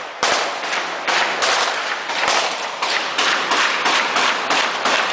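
Close gunfire: a rapid string of single shots, about three a second, each sharp crack followed by a short echoing tail.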